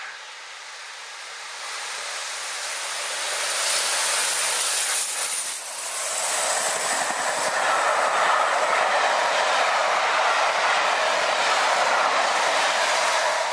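Three-cylinder LNER Peppercorn A1 Pacific steam locomotive 60163 Tornado running through at speed with its train. The sound grows louder over the first few seconds as the engine approaches and passes, then its coaches run past with a steady loud rush.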